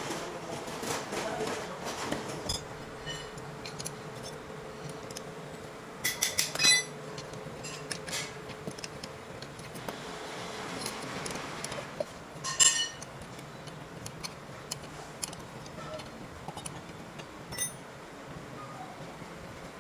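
Metal parts and hand tools clinking and tapping during work on a clutch booster: scattered light ticks, with a few sharp ringing clinks about six seconds in, again a little after twelve seconds, and once near the end.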